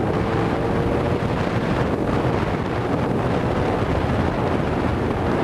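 Steady wind rush on the microphone of a camera on a moving motorcycle, with the bike's engine running underneath.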